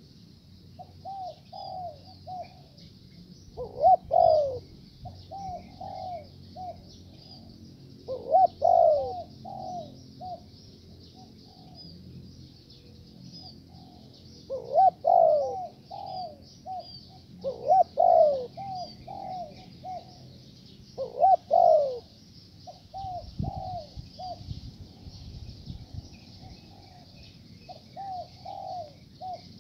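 Spotted doves (tekukur) cooing: repeated short phrases of several coo notes, some loud and close, others softer in between.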